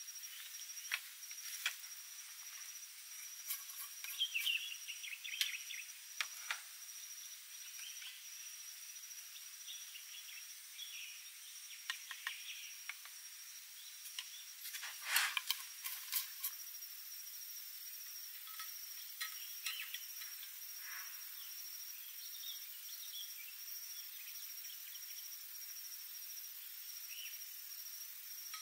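Insects trilling in one steady high-pitched tone, with scattered light clicks and taps of utensils being handled on a camp table. The loudest moment, about halfway through, is a short cluster of knocks and scrapes, like a wooden spoon stirring in a wooden bowl.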